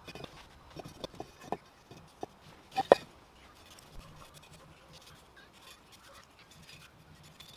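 A paintbrush scraping and dabbing paint onto a motorcycle engine side cover, with several light knocks in the first three seconds, the loudest about three seconds in.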